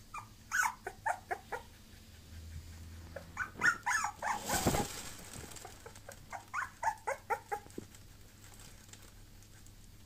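Bulloxer (bulldog–boxer mix) puppy whimpering in three bursts of short, high yips, with a brief scuffing noise in the middle burst.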